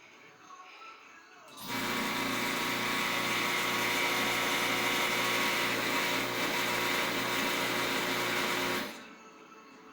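Gastric suction aspirator's electric vacuum pump running with a steady hum and hiss, switching on about two seconds in and cutting off about seven seconds later.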